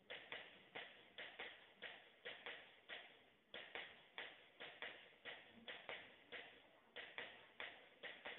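Faint, quick taps at an irregular pace of about three a second, each ringing briefly.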